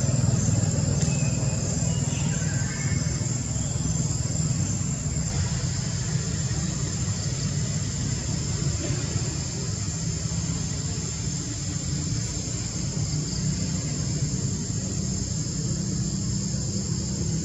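Steady outdoor ambience: insects drone constantly at a high pitch over a continuous low rumble, with a few faint chirps in the first seconds.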